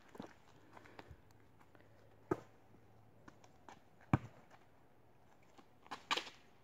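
A basketball bouncing on an asphalt driveway: single sharp thuds about two seconds apart, with faint scuffs between.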